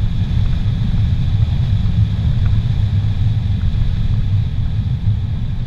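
A car driving steadily on a paved highway, heard from inside the cabin: a constant low rumble of tyres, engine and wind.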